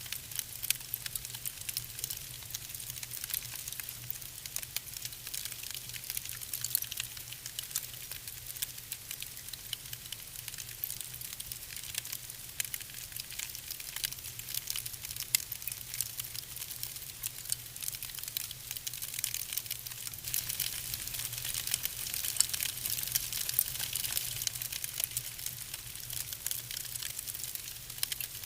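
Wood fire crackling in a fireplace: a dense, irregular run of small snaps and pops over a soft hiss.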